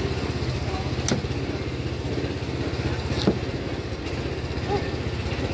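A small engine running steadily at idle, a low even rumble, with two sharp knocks about a second in and just after three seconds.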